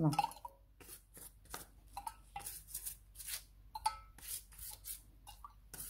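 Silicone pastry brush dabbing and stroking a mineral-water-and-oil glaze over the crisp crust of a freshly baked filo potato pie: a run of short, dry strokes, about three a second.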